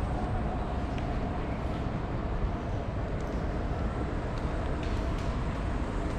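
Steady urban background noise, mostly a low rumble, with a few faint clicks.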